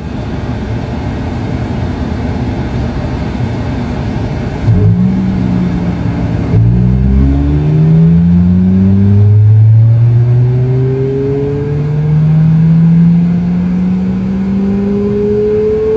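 Synthesized Nissan GT-R engine sound effect played through a Nissan N7 electric car's speakers. A low steady idle rumble for the first few seconds, then about five seconds in it revs up and climbs in pitch through several gear changes, the pitch dropping back at each shift, with one long slow climb at the last.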